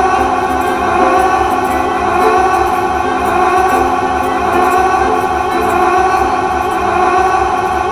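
Many looped copies of Carl Wheezer's 'ahhh' voice clip from Jimmy Neutron layered on top of each other into one loud, steady, slightly wavering drone.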